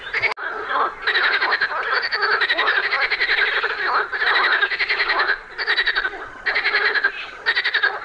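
A chorus of frogs croaking in rapid, pulsed runs of about a second each, one run after another with brief breaks.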